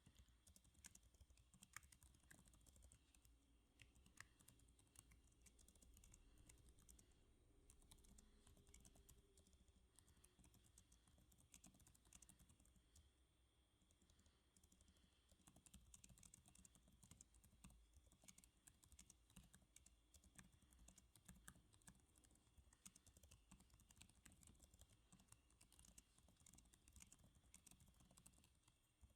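Quiet, steady typing on a computer keyboard: a dense, uneven run of soft key clicks, easing off a little about halfway through.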